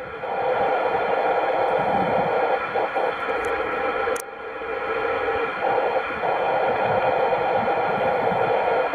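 CB radio receiver giving a steady hiss of static, with faint steady whistling tones in it. There is a click about four seconds in, and the hiss dips briefly before returning.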